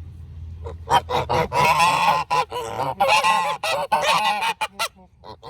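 Several domestic geese honking loudly together: a burst of short honks about a second in, then long overlapping calls, tailing off into short honks near the end. The geese are excited, which the owner puts down to a neighbour's noisy metalwork.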